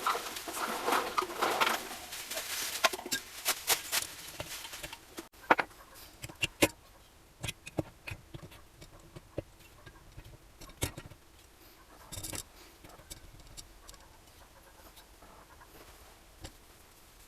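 Hand tools and small metal engine parts handled during engine assembly: a busy stretch of scraping and clicking in the first five seconds, then scattered single clicks and knocks.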